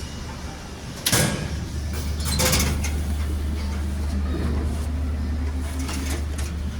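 Vending machine running its dispensing mechanism. A sharp click about a second in, then a steady low motor hum with a few knocks and rattles as the item is moved out.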